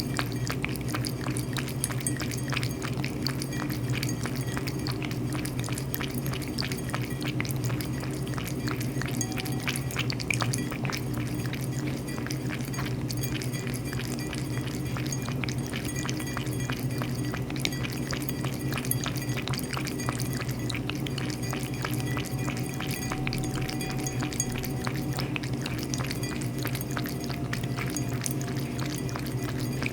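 A cat lapping water, a long run of quick, small wet clicks over a steady low hum.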